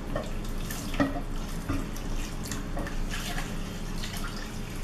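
Milk poured in a stream from a small pot into a saucepan of butter-and-flour roux, splashing into the pan while a silicone spatula stirs and scrapes through it, over a steady low hum.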